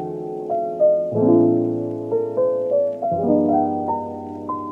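Background piano music: held chords that change about every two seconds, with single melody notes picked out above them.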